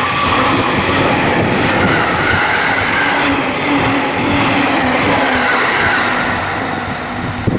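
E257 series limited express electric train passing close by: a steady rush of wheels on rail with repeated clacks over the rail joints and a faint motor whine, easing a little near the end.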